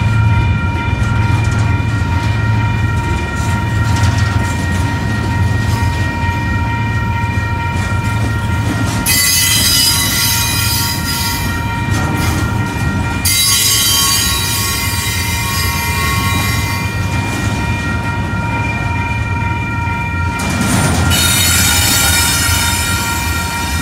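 Double-stack intermodal freight train rolling past: a steady rumble of wheels on rail, with high-pitched wheel squeal from about 9 to 13 seconds in and again from about 21 seconds in. A steady high ringing tone from the crossing signal's bell runs over it throughout.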